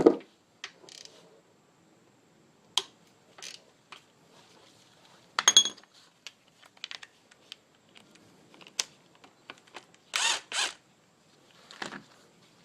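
Metal tools and engine parts clicking and clanking as the idler is taken off the timing end of a Saab 9-5 engine, with a loud clatter about halfway through and two short bursts of tool noise near the end.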